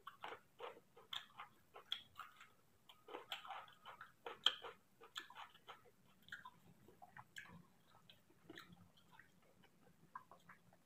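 Close-up chewing of rice and curry eaten by hand: a quick, irregular run of wet mouth clicks and smacks that thins out after about six seconds.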